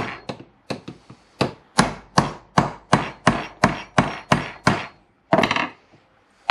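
Hammer striking a punch in a steady run of about fourteen sharp blows, roughly three a second, peening over the end of a steel footpeg pivot pin to flare it so it retains its washer. After the blows stop, a single short clatter follows.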